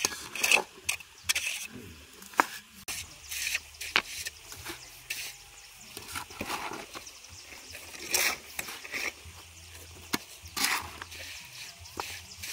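A shovel scraping and scooping wet cement mortar out of a metal wheelbarrow in irregular strokes, with a few sharp clicks of stone.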